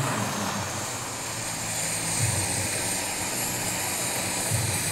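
Turbine-powered scale RC Bell 206 JetRanger model helicopter running, its small gas turbine giving a steady high-pitched whine. Two short low sounds break in about two seconds in and near the end.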